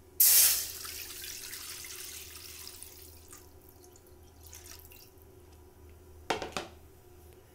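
Water poured from a plastic container into an empty aluminium kadai: a loud splash as the stream hits the metal, then a steady pouring that tapers off over about three seconds. Two brief sharp knocks near the end.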